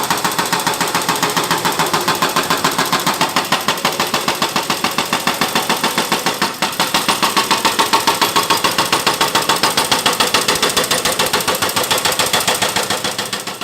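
A small engine running steadily with a rapid, even pulse of about six beats a second.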